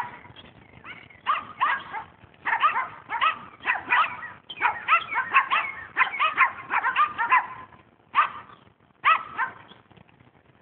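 Dogs barking in quick runs of short, high-pitched barks, several a second, with brief pauses between runs. The barking is busiest from about four to seven and a half seconds in.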